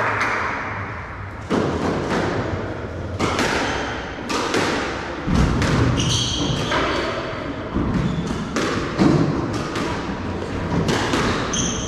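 Squash rally: the hard rubber ball is struck by rackets and smacks off the walls in a quick series of sharp impacts, with a few short high squeaks of court shoes on the wooden floor. Applause fades out in the first second or so.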